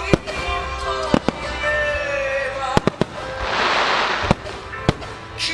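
Aerial firework shells bursting with sharp bangs, about six in all, including a spell of hissing crackle around the middle, over music playing with sustained notes.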